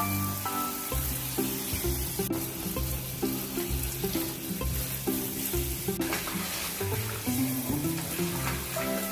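Handheld shower head spraying water onto a bathroom floor and bath edge, a steady hiss, with background music playing over it.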